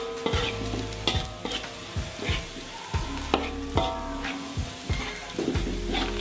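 Perforated metal spatula scraping and knocking against a metal wok as sliced shallots and garlic are stir-fried in hot oil. The irregular strokes come about two a second, each leaving the wok ringing, over a light sizzle.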